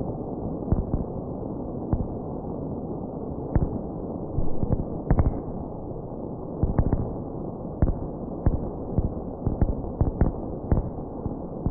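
Fireworks going off: a steady rumble broken by many sharp bangs and pops, about twenty of them at uneven intervals.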